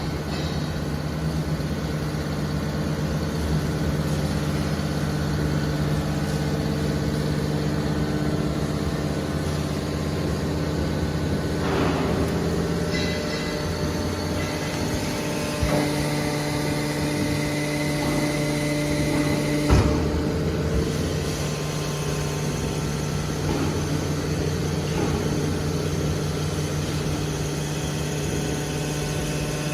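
Hydraulic scrap metal baler (130-ton) running, its power unit giving a steady hum, with a few sharp metal knocks, the loudest about two-thirds of the way through.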